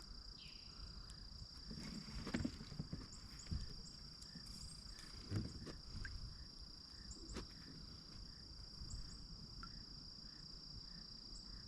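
Insects, likely crickets, trilling in one steady, high, continuous drone, with a few faint knocks.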